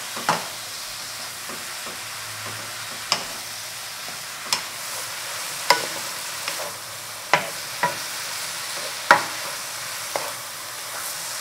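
Oyster mushrooms and carrot strips sizzling steadily in a wok-style pan over high heat, while a wooden spoon stirs them, knocking against the pan about nine times at uneven intervals.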